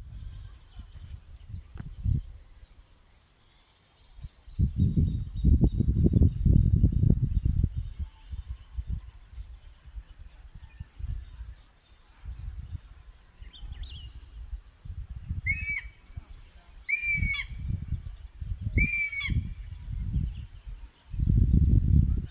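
A hawk-eagle gives three short, clear, whistled calls about a second and a half apart, with a fainter one just before them. Low rumbling wind noise on the microphone comes and goes and is the loudest sound, heaviest in the first third and again near the end.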